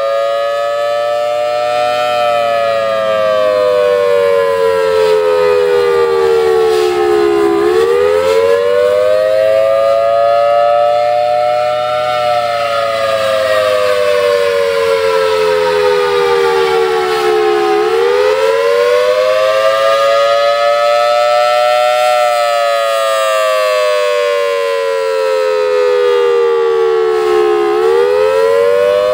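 Federal Signal Thunderbolt rotating, blower-driven warning siren sounding a steady alert tone. Its pitch slowly swells and sags, peaking about every ten seconds. A bad blower capacitor keeps its output lower than normal.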